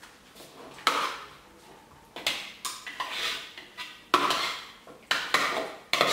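Chopsticks knocking and scraping against a ceramic mixing bowl as raw chicken wings are tossed in a marinade: irregular clacks, sparse at first and coming more often from about two seconds in.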